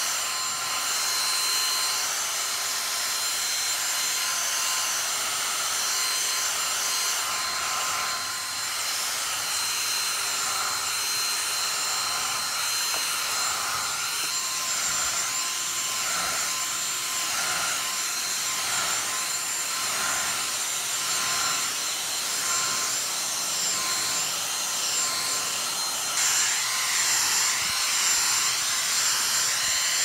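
Dyson V6 cordless vacuum cleaner running steadily with a high motor whine, its brush tool rubbing along a wooden desktop; a little louder near the end.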